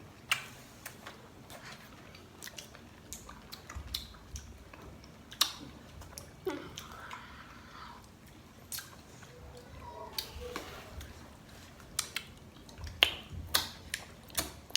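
A person biting and chewing firm Marian plum fruit, with irregular sharp crunches and mouth clicks.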